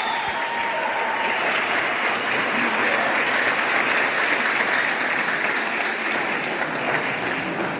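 Audience applauding steadily, a continuous patter of many hands clapping.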